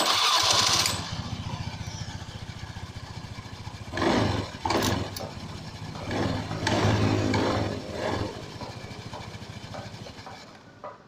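Suzuki Let's scooter's single-cylinder four-stroke engine starting up, running with a pulsing idle and revved twice with the throttle, then dying away near the end. The engine is being run to hear a rough noise from the CVT when the throttle is blipped.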